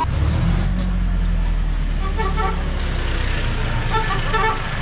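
A tractor's engine running with a steady low rumble, while a vehicle horn sounds two short runs of beeps, about two and four seconds in.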